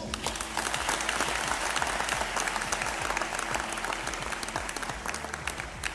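Audience applauding: dense clapping that starts abruptly and holds at a steady level.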